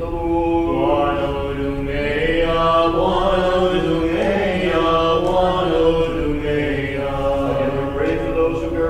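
Orthodox liturgical chant at Vespers: a hymn sung on long held notes that move step by step, with no speaking.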